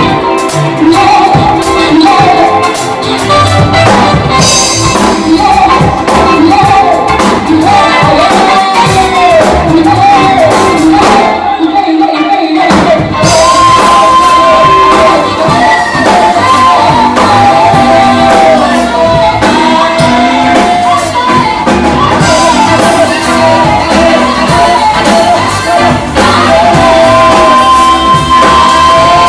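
Live band playing: women singing into microphones over electric guitars, drums and keyboard. The sound thins out briefly about twelve seconds in, then the singing carries on.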